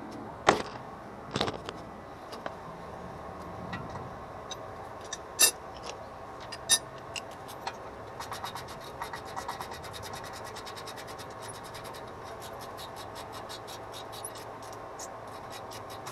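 Hand ratchet clicking as a loosened bolt is spun out of the front strut's lower mount: a few separate knocks of tools being handled first, then a fast, even run of ratchet clicks through the second half.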